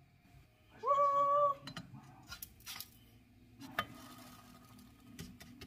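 A short, high-pitched vocal note held steady for well under a second, about a second in. It is followed by scattered clicks and knocks of a utensil against a ceramic frying pan as a pancake is turned over.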